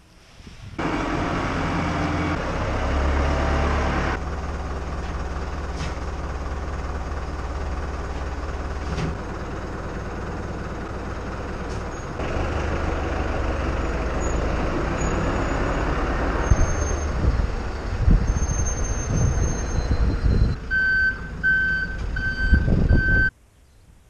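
Tractor diesel engine running as the vehicles manoeuvre in a bunker silo, then a reversing alarm beeping four times near the end.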